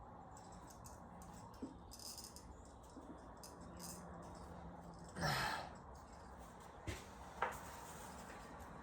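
Faint handling noise of a spark plug wire boot being pulled off and pushed back on: scattered light clicks, a short breathy whoosh about five seconds in, and two sharp clicks near seven seconds.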